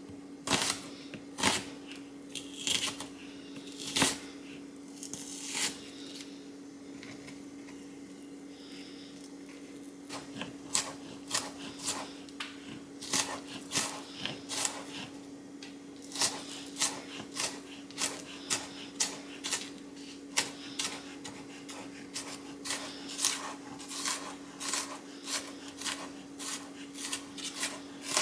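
Knife striking a plastic cutting board while dicing onion. A few scattered cuts come first, then a pause of a few seconds, then steady chopping at about two strokes a second from about ten seconds in. A steady low hum runs underneath.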